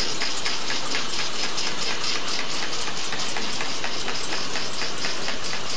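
Paper cup sleeve folding and gluing machine running, a steady mechanical hum with a fast, even, rhythmic clatter as it cycles.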